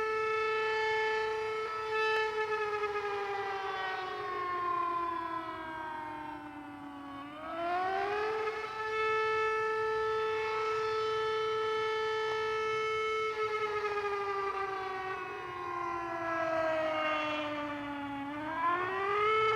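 Century outdoor tornado warning siren sounding from its rotating horn: a steady high tone that slides slowly down over several seconds and then climbs quickly back up, twice, with the loudness swelling and fading.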